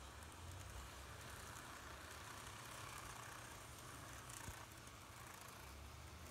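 Faint, steady running noise of a TOMIX N gauge model of a JR 185 series express train: a low motor hum and the wheels rolling along the track, with one small click about four and a half seconds in.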